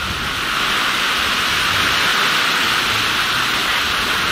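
Sea surf washing onto a sandy beach: a steady rushing hiss of breaking waves that swells slightly about half a second in.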